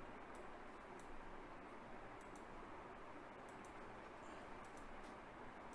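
Faint computer mouse clicks, scattered and some in quick pairs, over a low near-silent hiss.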